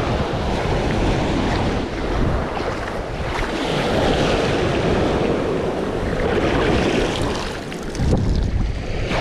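Sea surf breaking and washing in over the beach around the feet, a rushing hiss that swells and eases with each wave, with a fresh surge about eight seconds in. Wind buffets the microphone.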